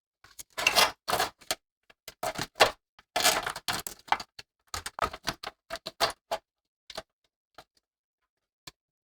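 Irregular clicks and clatter of hard plastic and metal parts being handled and fitted while a desktop PC is assembled. The clicks come thick and fast for the first few seconds, then thin out to a few scattered clicks.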